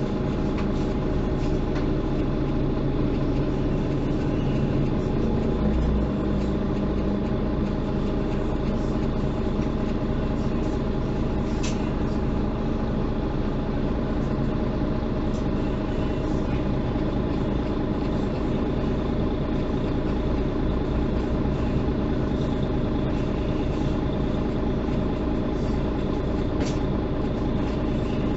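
Mercedes-Benz O530 Citaro city bus (first generation, Euro 4) heard from inside the passenger cabin: its engine runs with a steady drone, and a couple of light clicks sound around the middle and near the end.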